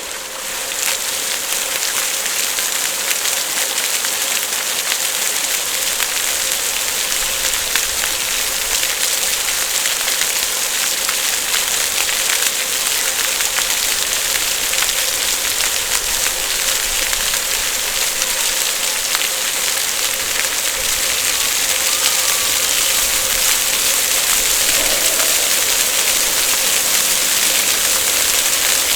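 Water fountain splashing steadily, a dense hiss of falling water strongest in the upper range, swelling up during the first second and then holding even.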